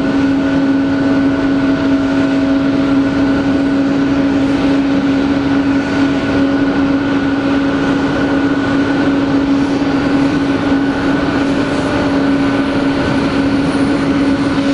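Boeing 737-800's CFM56-7B jet engines running steadily, a rushing noise with a steady whine of several held tones.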